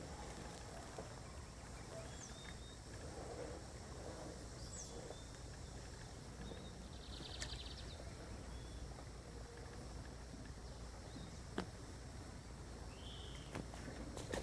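Quiet outdoor ambience with a low steady background hum and a few faint, scattered bird chirps. A single sharp tick comes about two-thirds of the way through.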